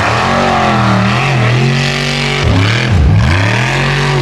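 Formula Offroad buggy's engine revving hard under load on a steep dirt-hill climb. The revs rise and fall and dip sharply twice around the middle before climbing again.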